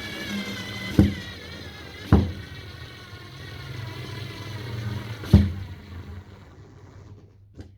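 Small 3.6 V cordless screwdriver motor whining and slowly dropping in pitch as it labours driving a screw into wood. Three sharp knocks come about one, two and five seconds in, and it goes much quieter near the end.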